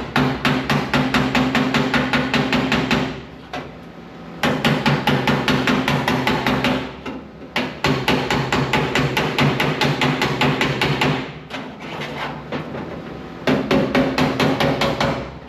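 Hammer striking a sheet-steel patch panel against a dolly held behind it, in four quick runs of rapid blows with short pauses between, the panel ringing. Each tack weld is being planished to stretch back the metal that the welds have shrunk.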